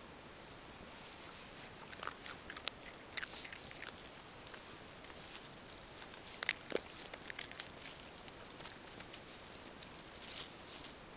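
Dogs crunching dry kibble and rustling through grass as they forage, an irregular run of short crunches and rustles, the sharpest a couple of clicks about six and a half seconds in.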